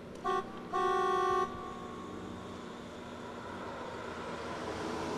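A car horn honks twice, a short toot and then a longer one lasting under a second, over steady street traffic noise.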